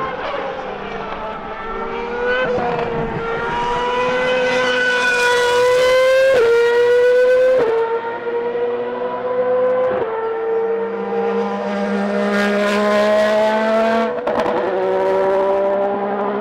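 Formula 1 car engine at high revs on the straight, its pitch climbing steadily and dropping sharply at each of several upshifts as it accelerates.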